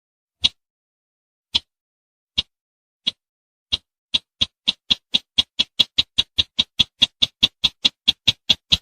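Call of the bush bird sold as the 'sintar semak' hunting lure: short, sharp, high notes, spaced at first, then speeding up about halfway through into a fast even series of about four a second.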